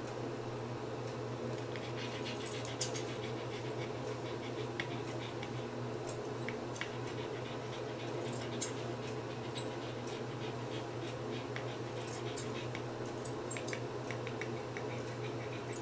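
Grooming scissors snipping through a dog's long coat: scattered sharp clicks, a cluster of them near the end, over a steady low hum.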